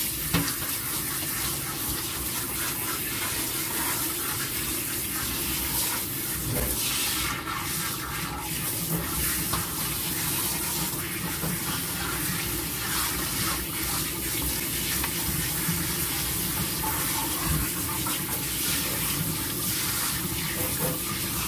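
Handheld shower sprayer running steadily, water spraying onto a wet puppy's coat and splashing into a grooming tub.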